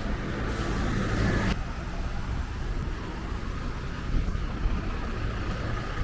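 Street traffic, a steady low rumble of vehicles on a road. A loud hiss in the first second and a half cuts off suddenly.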